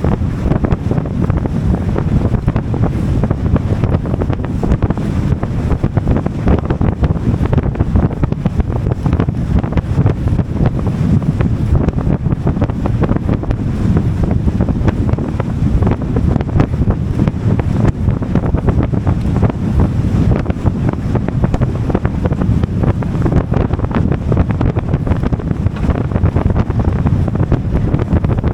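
Steady wind buffeting the microphone on a moving boat, with the rush of water against the hull beneath it.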